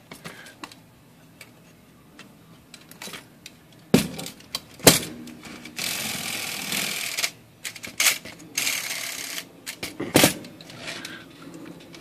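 Portable Royal typewriter's carriage being moved back and forth by hand: sharp clicks and knocks, with two longer rattling slides about six and nine seconds in. The carriage is being tested under the pull of its freshly rebuilt, rewound mainspring.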